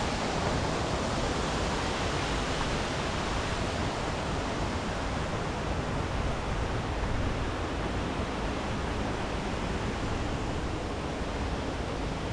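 Steady rushing noise, even and unbroken, with no distinct knocks or tones.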